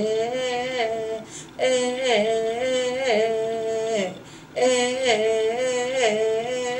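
A woman singing a Maxakali yãmîy chant, solo voice without accompaniment: sustained notes stepping between a few pitches in short repeated phrases, with brief pauses for breath about a second and a half in and again past the middle.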